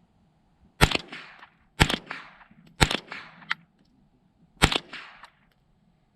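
Four .22 rifle shots from a Tippmann M4-22, the first three about a second apart and the fourth after a longer pause, each trailing off in a short echo.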